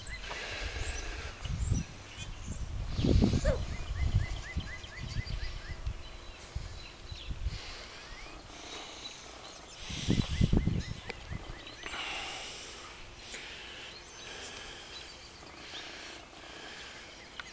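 Outdoor yard ambience: low rumbling gusts on the microphone, loudest about three and ten seconds in, with faint high chirps and a short rapid run of ticking notes.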